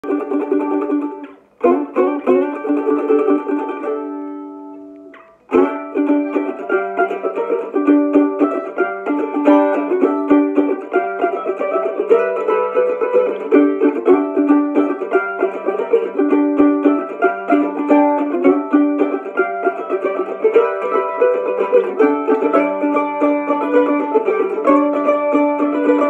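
F-style mandolin played solo with a flatpick: fast picked melody notes. About four seconds in, a chord is left to ring out and die away, then fast picking resumes and carries on.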